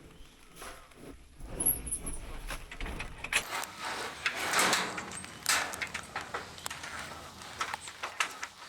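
Handling noise: irregular clicks, knocks and rattles of doors, latches and equipment being worked, with the background changing abruptly about a third of the way in.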